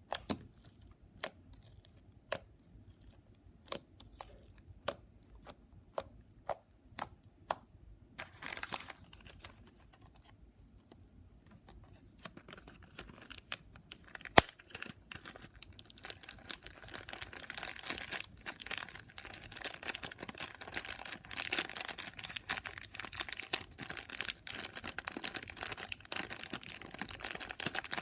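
Slime being played with: sharp single clicks about once a second at first, then from about halfway a dense run of sticky crackling and popping as it is squeezed and stretched.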